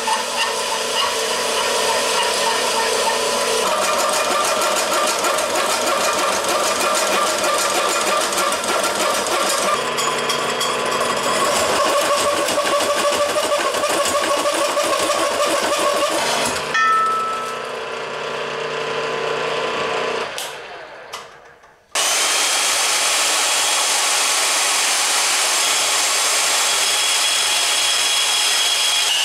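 Milling machine spinning a hole saw down through a steel plate: a steady motor hum with cutting noise over it. About 17 seconds in the machine is switched off and winds down to quiet. From about 22 seconds a portable band saw runs, cutting steel with a steady high whine.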